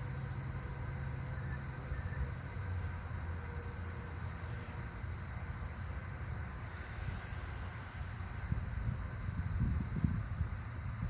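Steady, unbroken chorus of crickets chirring on a high, even pitch, with a low rumble underneath.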